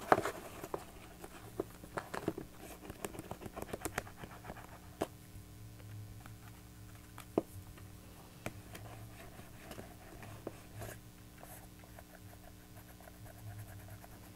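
Paper pieces being handled and pressed onto a paper book box: scattered light taps, rustles and scrapes, busiest in the first few seconds, over a faint steady hum.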